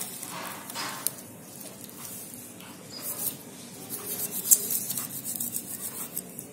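Raw chicken being handled and cleaned by hand in a metal bowl: wet squishing and rubbing, with scattered small clicks and crackles. The sharpest click comes about four and a half seconds in.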